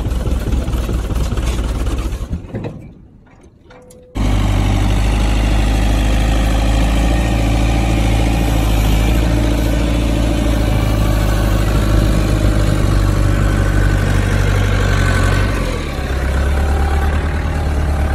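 Forklift engine running steadily under load. It falls away for about two seconds a couple of seconds in, then comes back abruptly and keeps running, shifting slightly in tone near the end.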